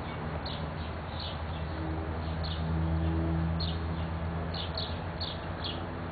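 Backyard birds chirping, a string of short high chirps repeating every fraction of a second, over a steady low hum that grows slightly louder in the middle.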